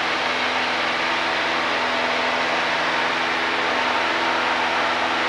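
Single-engine Cessna's piston engine and propeller droning steadily in cruise flight, heard inside the cabin with a constant rush of air noise. The pitch and level stay even throughout.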